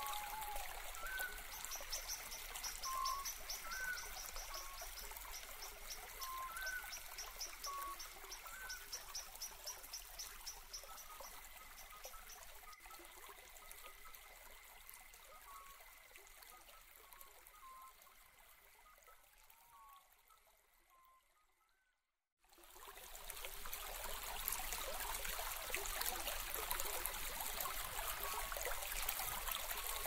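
Steady rush of running water, with a bird repeating a short call every second or so and a fast, high trill during the first ten seconds. The sound fades to silence about two-thirds of the way in, and the water returns about three seconds later.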